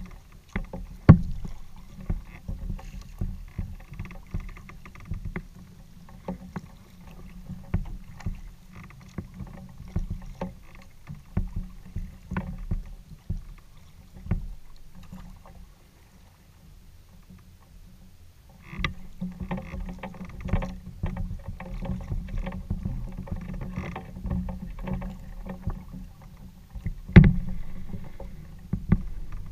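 Paddling a Delta 12.10 kayak: water sloshing against the plastic hull, with many short knocks and a low rumble carried through the hull. The strokes ease off around the middle, then pick up again, and there is a loud thump on the hull about a second in and another near the end.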